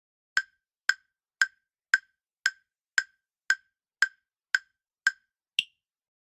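A countdown-timer tick sound effect: eleven sharp, evenly spaced ticks at about two a second, the last one higher in pitch. It counts down the time left to answer a quiz question.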